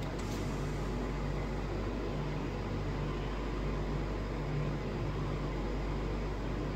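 Steady low hum and hiss of a car cabin with the engine running, with one faint click near the start.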